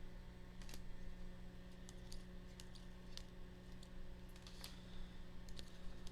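Topps Chrome trading cards being sorted by hand: scattered light clicks and taps, a few each second, as the stiff cards are handled and set down.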